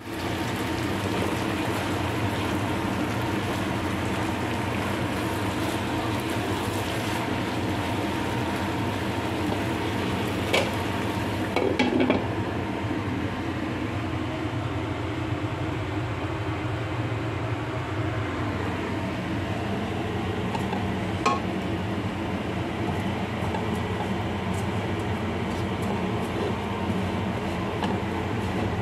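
Food sizzling in a frying pan as a silicone spatula stirs it, over a steady hum. A few sharp knocks of utensil on pan come about ten to twelve seconds in and again around twenty-one seconds.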